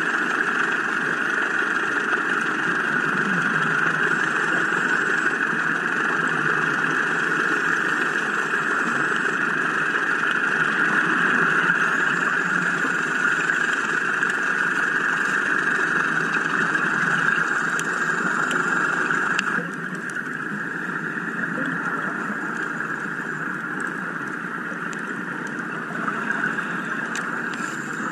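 Steady engine drone heard underwater, from the surface air-compressor engine that feeds a hookah diver's air hose. It drops noticeably in level about two-thirds of the way through.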